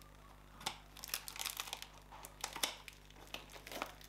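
Scissors cutting into the clear plastic film and tape wrapped around a cardboard parcel, the plastic crinkling with irregular snips and crackles that start about half a second in.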